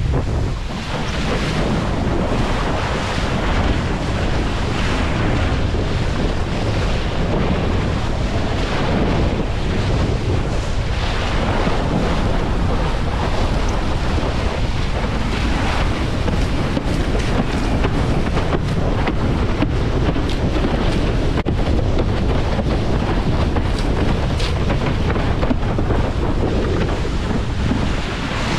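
Strong wind buffeting the microphone in a steady loud rush, over the hiss and splash of water running under a windsurf board sailing through choppy water.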